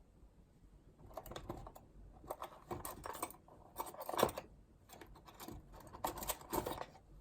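Typing on a keyboard: bursts of key clicks starting about a second in, broken by short pauses.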